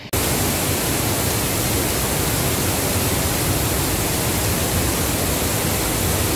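Flooded waterfall: a loud, steady rush of muddy floodwater plunging down a rock face, cutting in abruptly just after the start.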